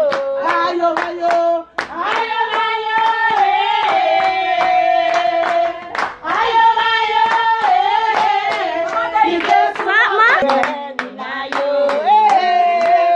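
Women singing a celebration song in long, held phrases while clapping their hands in a steady rhythm.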